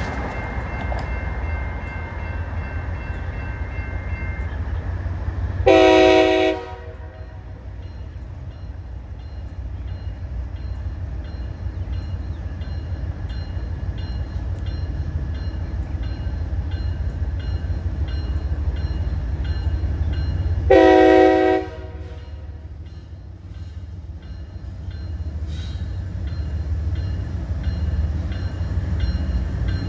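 CSX freight train rolling by with a steady low rumble, its locomotive sounding two short horn blasts about fifteen seconds apart, one about six seconds in and one near two-thirds of the way through.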